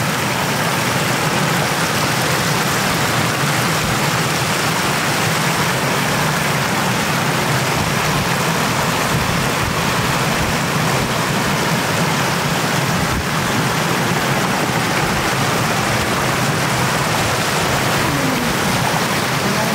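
Shallow floodwater rushing over a road surface and its edge in a steady, unbroken stream.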